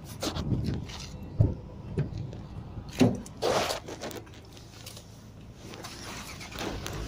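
Handling noise of a phone held against clothing: rustling of fabric and a few dull knocks, the sharpest about one and a half and three seconds in, as the person holding it moves about inside a car beside the door.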